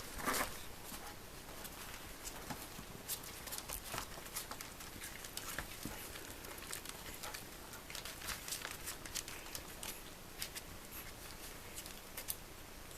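Newborn puppy moving about a whelping box: scattered small scratches and clicks from its claws on the bedding and box, with a slightly louder sound just after the start.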